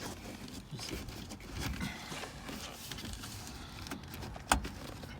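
Faint handling noise: light rustling and small plastic clicks as the overhead DVD unit is handled and worked loose. One sharper click about four and a half seconds in.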